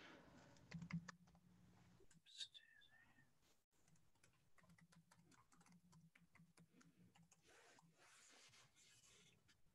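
Faint typing on a computer keyboard: a scatter of light key clicks, thickening in the second half, over a faint steady low hum.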